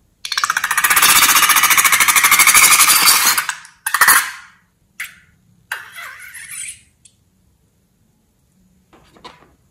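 Squeezed balloon sputtering as liquid and air are forced out through a straw in its neck. A loud, fast rattling rasp lasts about three seconds, followed by several shorter sputters.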